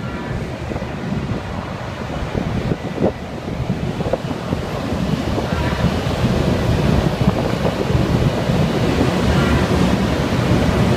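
Wind buffeting the microphone over the steady rumble of drilling-rig machinery, with a couple of faint knocks; the rumble grows louder toward the end.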